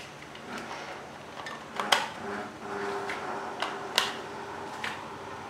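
Hands working the battery compartment of a plastic toy rifle: a few sharp plastic clicks, about two seconds apart, over soft handling rattles as AA batteries are fitted.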